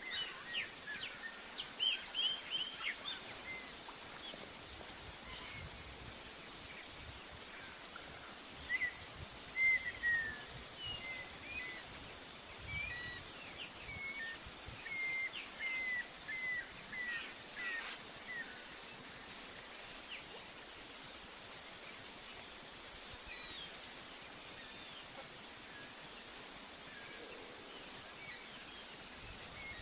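Farm ambience: a steady, high-pitched insect trill with birds chirping over it. Most of the chirps fall in the first half.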